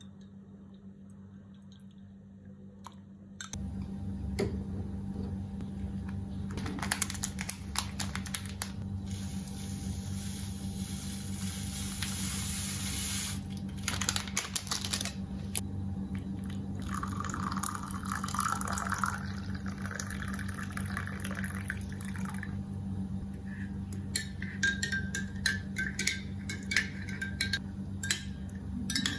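Liquid poured into a glass, then a spoon clinking repeatedly against the glass as a ginger drink is stirred, over a steady low hum that starts about three seconds in.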